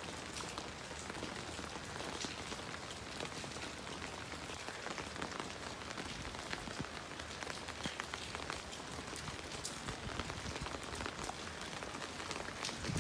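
Steady rain falling on a wet rooftop terrace: an even hiss with many small, irregular taps of drops landing on wet concrete and puddles.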